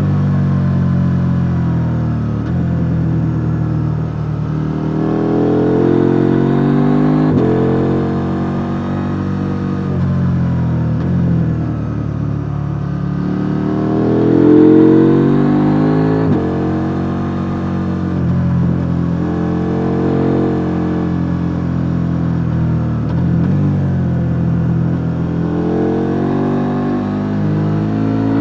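KTM 890 Duke R parallel-twin engine on the stock exhaust, revving up and easing off again and again as the bike powers through a run of corners, its pitch climbing and falling several times with a couple of sudden drops at gear changes.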